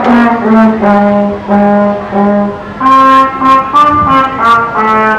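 Children's small wind ensemble (trombone, trumpet, clarinet and flute) playing a tune together in separate held notes of about a third to half a second each, with the trombone carrying the low line.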